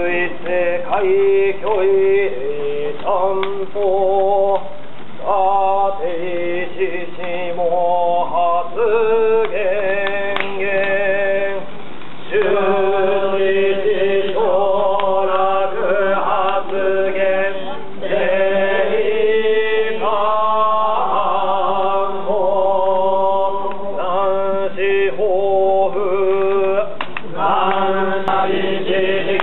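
Yamabushi (Shugendo mountain ascetics) chanting in unison at a saitō goma fire rite: male voices intoning sutras or mantras on held, steady pitches, with short breaks between phrases.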